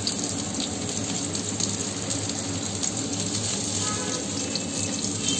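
Sliced onion and green capsicum sizzling in hot oil in a wok: a steady hiss.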